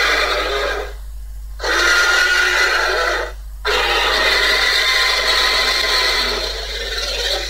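Tyrannosaurus rex roar sound effect: three long roars in a row with short breaks between them, the last one the longest.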